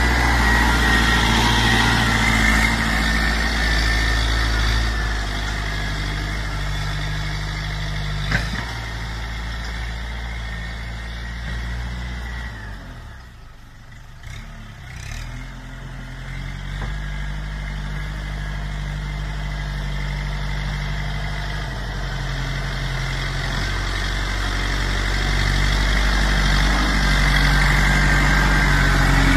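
Kubota M8540 tractor's diesel engine working under load as it pushes soil with a front blade, its pitch stepping up and down. It fades as the tractor works farther off about halfway through, then grows louder again as it comes close; a single sharp knock sounds about eight seconds in.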